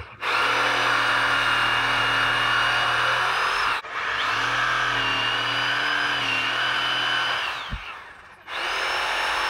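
Electric jigsaw running as it cuts through a 2x4, a steady motor sound in three long runs with short breaks about four seconds in and near the end.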